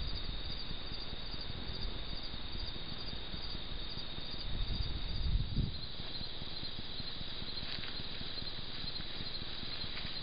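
Night insects chirping steadily: a high, even trill with a fast regular pulse above it. About four to six seconds in, low rustling and bumping as the feral hog pushes through grass close to the camera.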